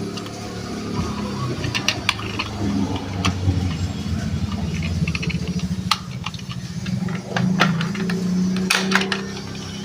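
Plastic toy buses rolling and rattling on a plastic toy garage playset, with a steady low rumbling drone and many sharp plastic clicks and knocks.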